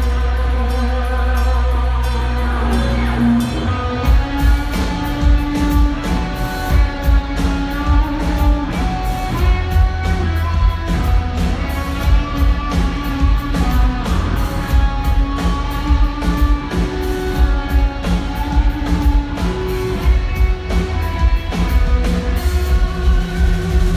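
Loud live rock band playing: a sustained electric guitar melody over bass, with the drum kit coming in about four seconds in and keeping a steady beat.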